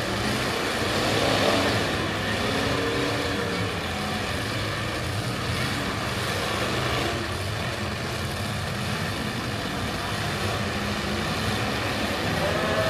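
Several limited-weld demolition derby cars' engines running and revving together in a steady, loud mix, with one rev climbing about a second and a half in.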